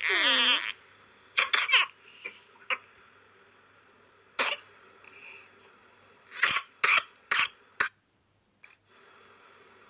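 Young child with whooping cough (pertussis) coughing in short sharp bursts after a brief cry. A quick run of three coughs comes about a second and a half in, then single coughs, then a run of four near the end.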